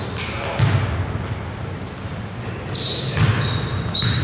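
Basketball game on a hardwood gym floor: the ball thumping as it is dribbled, and sneakers squeaking in short high chirps, several of them in the second half, in a large echoing gym.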